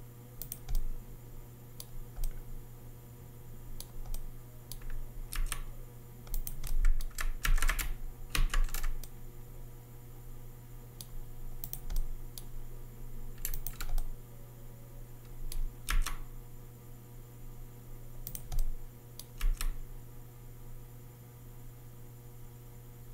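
Computer keyboard keys clicking in short, irregular clusters as the software is worked, over a steady low hum.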